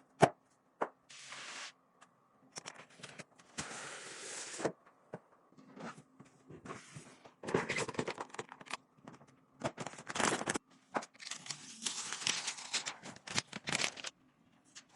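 Hands working on gaming PC components during assembly: repeated bursts of rustling, tearing-like noise, each lasting up to a couple of seconds, with a few sharp clicks between them.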